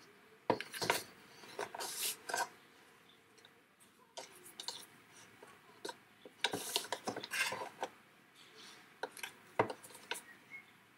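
Clear cellophane bag crinkling and paper rustling in short scattered bursts as hands handle a small wrapped paper box and its ribbon.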